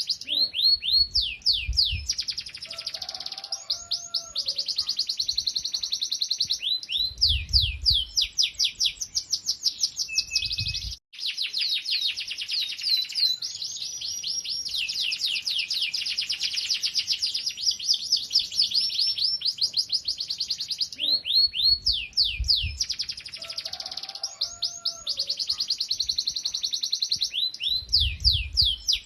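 Domestic canary singing a long, continuous song of rapid trills, fast runs of repeated sweeping notes that change from phrase to phrase. A few low thumps come under the song.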